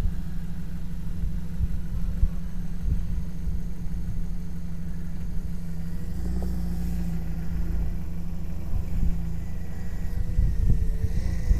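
Jeep Wrangler TJ's engine running at low revs, a steady low rumble, as the Jeep crawls slowly off-road across a steep side slope.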